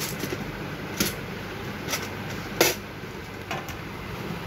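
Hands handling the opened projector's plastic and metal parts: four short, sharp clicks and taps, the loudest about two and a half seconds in, over steady background noise.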